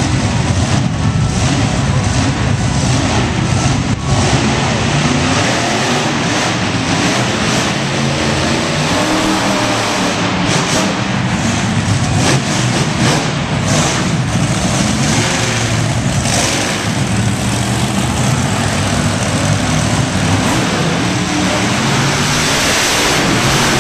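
Monster truck engines running and revving loudly.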